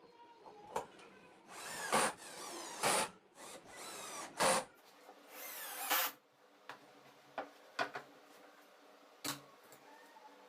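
Power drill running in four short bursts, its motor pitch rising and falling with each trigger pull, then a few light clicks.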